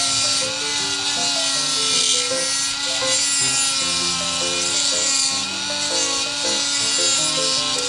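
Proxxon mini rotary tool running with a steady whine while its bit grinds a plastic model bumper part, with a gritty rubbing noise as it cuts. Background music plays alongside.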